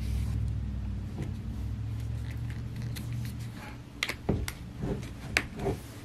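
Handling noise from an opened laptop being held and shifted by hand: a low rumble, then several light knocks and taps in the second half.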